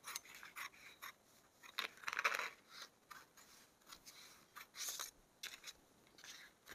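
Tailoring scissors snipping along a marked line, cutting out a blouse front piece: a faint string of short, irregular snips, the loudest and longest about two seconds in.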